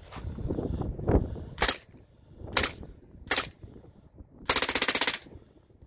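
Ingram MAC-10 machine gun with a Lage .45 upper firing full-auto: three short bursts about a second apart, then a longer burst of rapid shots lasting under a second near the end.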